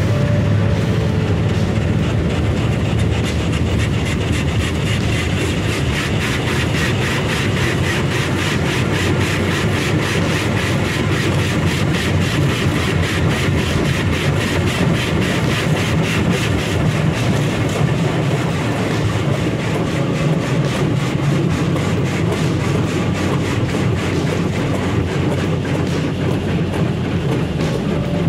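Automatic car wash heard from inside the car: water spray and wash machinery drumming on the windshield and body, a loud, steady rush and rumble with a fast, even flutter.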